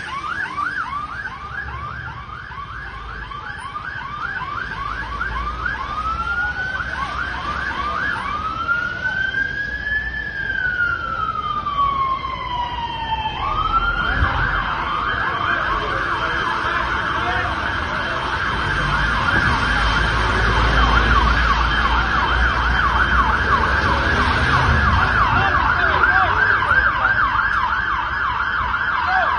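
Emergency vehicle siren on a fast yelp that changes about a third of the way in to a single slow wail, rising then falling. It then goes back to a fast yelp, louder, for the rest. A low engine rumble sits beneath it in the second half.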